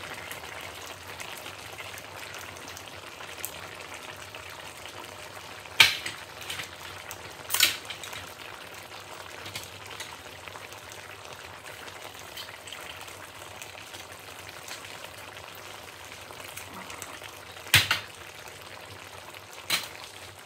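Chicken, vegetables and coconut-milk sauce simmering in a stainless steel wok, a steady bubbling sizzle. Four sharp knocks or clicks break through it, the loudest about six seconds in and two more near the end.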